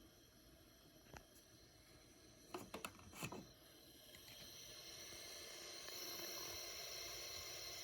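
Vicks VWM845 warm mist humidifier heating its water on the high setting: a faint click, a few quick ticks and pops around three seconds in, then a faint hiss that swells and holds steady as the water heats.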